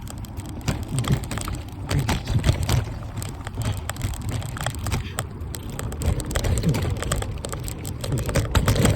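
Electric mountain bike ridden over a rough dirt trail under pedal power, with a dense, irregular rattle and clatter from the tyres and bike over the bumps, and a low rumble of wind on the microphone.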